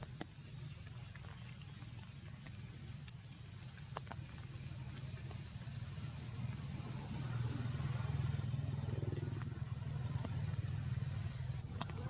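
Rain falling, with scattered sharp drips, over a steady low rumble that grows louder about seven seconds in.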